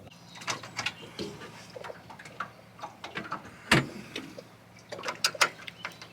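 Scattered light clicks and knocks, with one sharp, louder knock a little past the middle.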